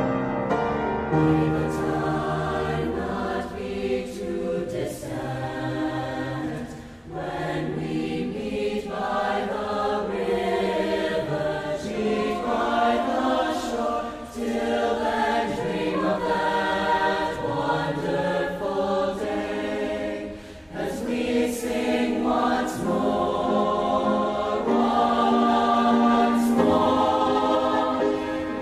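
A song sung by a choir of voices over instrumental accompaniment, in slow held phrases with brief breaks between them.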